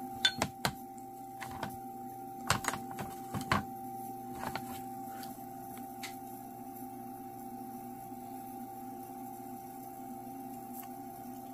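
Light clicks and knocks of a field-stripped Glock 19 Gen 5's polymer frame and slide being handled and set down, about a dozen in the first six seconds, over a steady electrical hum.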